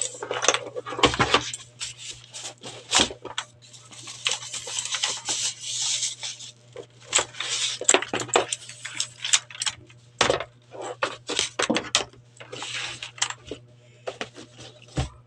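Keyboard box and packaging being handled during unboxing: irregular rustling and crinkling of packaging with many clicks, knocks and light clatter as parts are lifted out.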